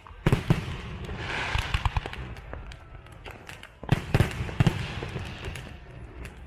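Aerial fireworks bursting: scattered sharp bangs with crackling, then a louder cluster of booms about four seconds in.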